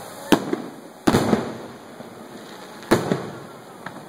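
Aerial fireworks shells bursting: three loud sharp bangs a second or two apart, the middle one followed by a quick cluster of smaller reports, then a fainter bang near the end.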